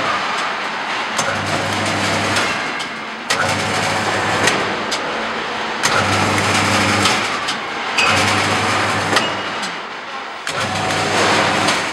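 Rebar stirrup bending machine's electric motor running in short bursts of about a second, five times, roughly every two seconds, as it is switched on and off from its foot pedal, with clicks in between.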